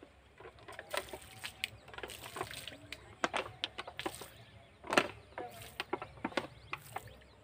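Petrol pouring from a plastic bottle and splashing into pond water, in uneven glugs and splashes.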